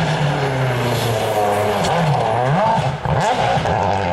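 Rally car engine pulling hard at high revs along a stage. About two and a half seconds in, the pitch falls as it slows for a bend, then climbs sharply as the car accelerates away.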